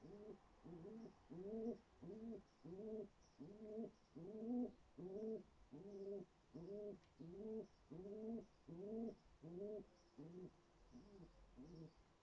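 Pigeon cooing: a long run of short rising coos, about two a second, growing weaker and stopping near the end.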